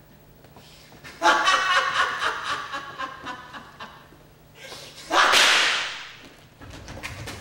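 A man cries out for about two seconds, then a single pistol shot cracks about five seconds in, with a long echoing tail.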